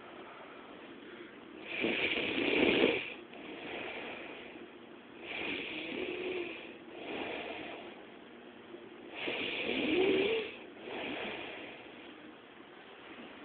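A woman snoring in her sleep: three loud snores about a second and a half long, each followed by a softer breath, coming round every three and a half to four seconds.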